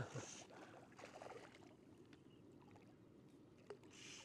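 A hooked rainbow trout splashing at the surface right at the start, then faint water sounds around the boat, with a brief soft hiss near the end.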